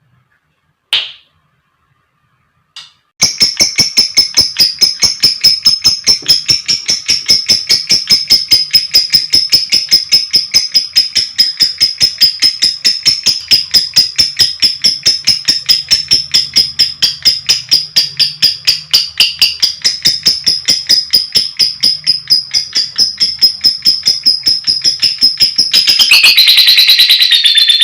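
Lovebird calling: a single short chirp, then a long, even run of short, high, clicking chirps several a second. Near the end it breaks into a louder, denser continuous chatter.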